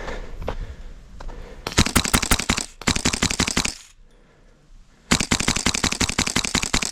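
Airsoft gun firing on full auto in two long bursts of rapid clicking shots, the first starting about one and a half seconds in and the second starting near the end.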